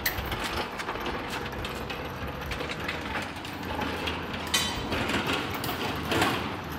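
A shop engine hoist and its lifting chains rattle and clink steadily while carrying an engine, with a couple of sharper metal clinks near the end.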